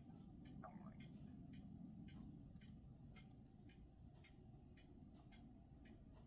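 Near silence: faint, even ticking about twice a second over a low background rumble, with one brief faint chirp near the start.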